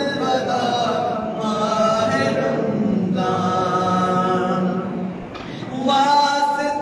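Men's voices chanting in unison without instruments, a devotional recitation sung in long, wavering held notes. The chant dips briefly about five seconds in and a new line starts just before the end.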